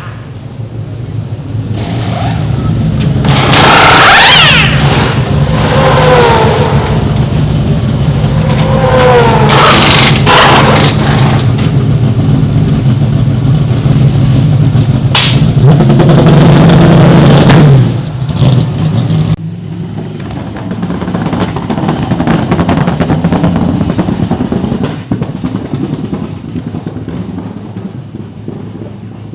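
Gen3 Supercars V8 race cars running at speed, engine notes rising and falling through the revs as they pass, several times in the first half. A steady low hum sits underneath and cuts off suddenly about 18 seconds in, and a quieter engine sound follows.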